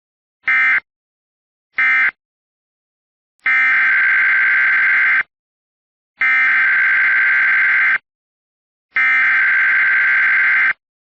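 Emergency Alert System digital data tones: two short buzzy bursts, the end-of-message code closing one alert, then three longer bursts of the next alert's SAME header, each about a second and a half long with brief silences between.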